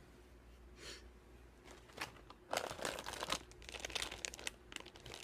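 Plastic snack wrappers crinkling as packaged snacks are handled. Quiet at first, then a busy run of crackles from about two seconds in.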